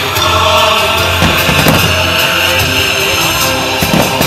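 Loud music accompanying a fireworks show, with a few sharp bangs cutting through it about a second in, just under two seconds in and again near the end.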